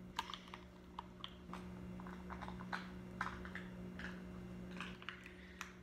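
Fingernails picking and prying at a sealed plastic toy capsule, giving faint, irregular small clicks and taps.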